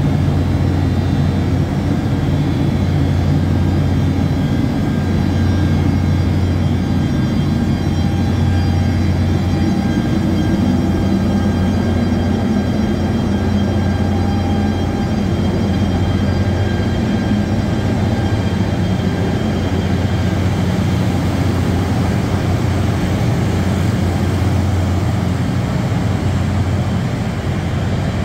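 Korail electric locomotive hauling a passenger train slowly past a platform: a loud, steady machine hum with a strong low drone and several steady whining tones above it.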